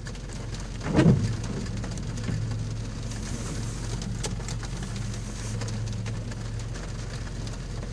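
Vehicles driving through a flooded street: a steady low engine hum over the wash of tyres in standing water, with one short louder sound about a second in.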